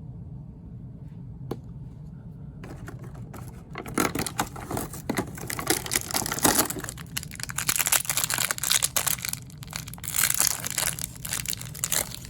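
Toy packaging being opened by hand, crinkling and tearing in quick, dense rustles that start about three seconds in, with a single sharp click about a second and a half in.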